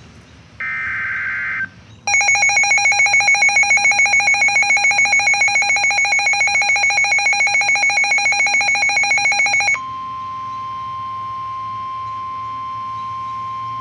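NOAA Weather Radio emergency alert for a severe thunderstorm warning. A one-second burst of raspy SAME digital header data comes first. About a second later a loud pulsing electronic alarm sounds for nearly eight seconds, and it then switches to the steady 1050 Hz warning alarm tone.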